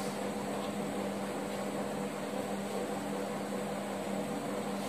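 Steady room tone: an even hiss with a constant low hum, unchanging throughout.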